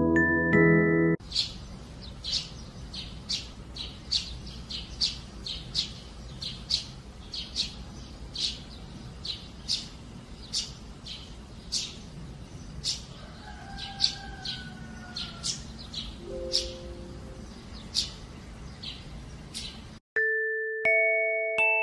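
Sparrow chirping, short sharp chirps about twice a second over a low steady outdoor background. A glockenspiel-like music melody plays for the first second and again near the end.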